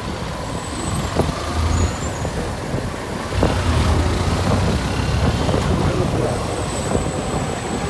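Motorcycle riding noise: the engine running under a steady rumble of road and wind noise, with a few brief knocks.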